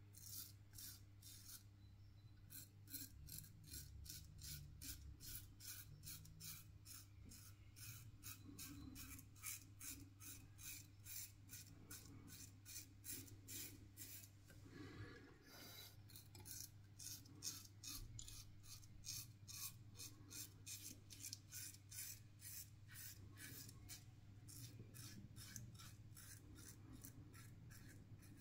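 RazoRock Hawk V2 single-edge safety razor with a Feather ProGuard blade cutting through lathered stubble, on the first pass with the grain. It makes short rasping strokes, about three to four a second, with a brief pause about two seconds in and another about halfway.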